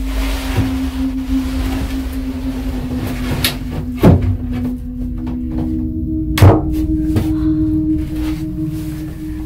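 A steady low hum that steps up to a slightly higher pitch about five seconds in, under rustling and handling of a wooden door, with two sharp knocks about four and six and a half seconds in, the second one the loudest.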